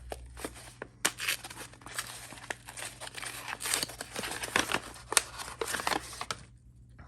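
Packaging crinkling, rustling and tearing as a pack of washi tape is handled and opened, with many small sharp crackles; it stops about six seconds in.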